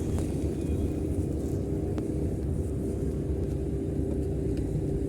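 Motor vehicle running: a steady low rumble with a constant engine hum.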